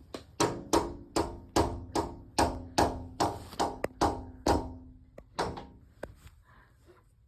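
A toddler knocking on a window pane with his hand: about a dozen sharp knocks roughly two a second, each with a short ring, tailing off into a few fainter taps near the end.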